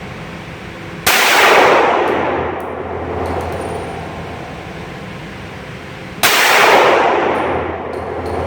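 Two pistol shots from a Glock 32 Gen 4 in .357 SIG, about five seconds apart, each a sharp loud report followed by a long ringing decay.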